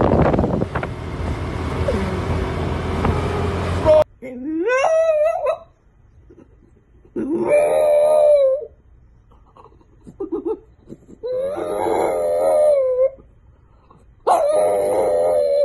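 French bulldog howling: four long, drawn-out howls with pauses between them, the first sliding up in pitch before it levels off. Before the howls, a steady rushing noise cuts off abruptly about four seconds in.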